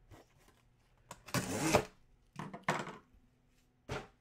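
Box cutter slicing along the top of a cardboard shipping box: one longer cut about a second in, then three short strokes.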